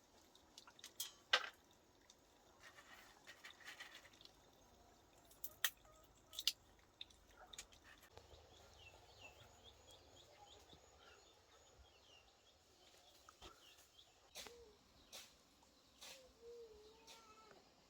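Quiet background of scattered drips and small clicks, with faint bird chirps in the middle and a short low call near the end.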